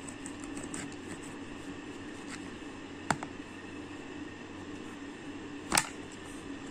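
Plastic modelling-clay tools tapping on a plastic toy tray: one sharp click about three seconds in and a louder one near the end, over a steady background hum.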